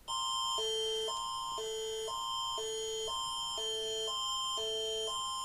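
Canadian Alert Ready emergency attention signal for a tornado warning: a loud electronic alarm that starts abruptly and alternates between two tone chords every half second over a steady high tone.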